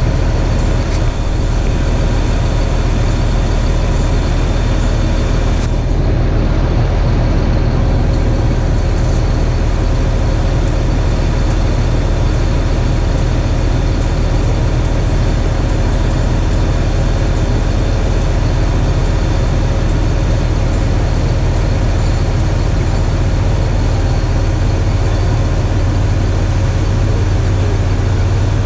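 Tractor engine running steadily, a continuous low drone.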